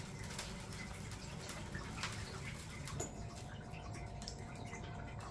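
Faint scattered ticks and light scratching from pet rats moving about and nibbling food, over a low room hum. A faint steady tone comes in about three seconds in.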